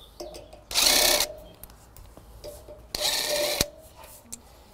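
DeWalt 18V cordless impact driver backing out pre-installed bolts from an aluminium pergola post, running in two short bursts about a second in and about three seconds in.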